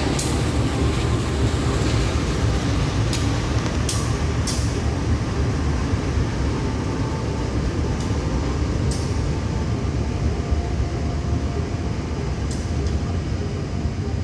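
A train running, a steady low rumble with sharp clicks every second or few at uneven intervals.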